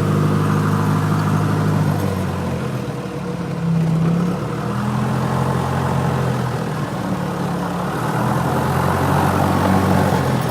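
Light aircraft's piston engine and propeller running: a steady low drone that shifts a little in pitch a few times.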